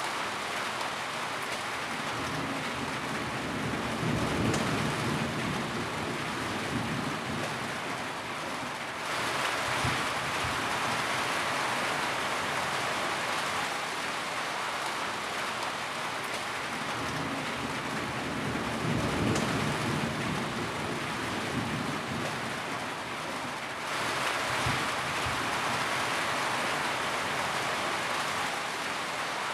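Steady heavy rainfall, a dense even hiss, with a low rumble swelling and fading twice. The rain's hiss changes suddenly in brightness a couple of times.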